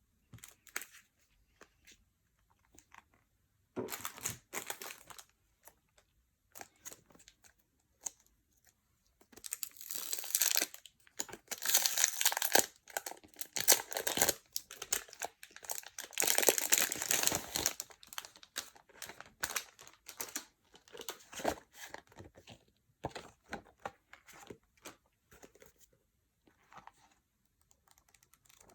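Packaging being unwrapped by hand: wrapping crinkling and tearing in irregular bursts. The densest crinkling comes in the middle, and it thins to small rustles and clicks near the end.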